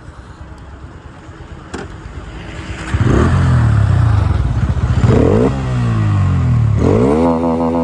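Bajaj Pulsar N160's single-cylinder engine idling, then, about three seconds in, revved three times, each rev rising and falling back, for an exhaust sound test.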